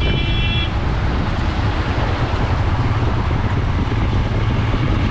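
Motorcycle engine running steadily while riding, under heavy wind noise on the microphone. A short high-pitched beep sounds in the first moment.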